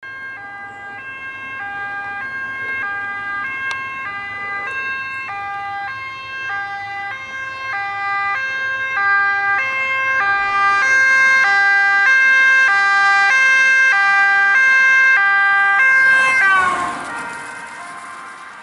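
Dutch police car's two-tone siren alternating high and low, about one high-low cycle every 1.2 seconds, growing louder as the car approaches. About 16 seconds in, the pitch drops as the car passes, and the siren grows fainter as it drives away.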